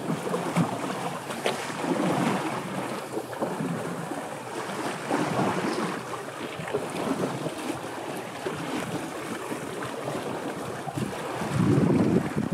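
Water sloshing and splashing around an elephant wading through a pond, with wind noise on the microphone.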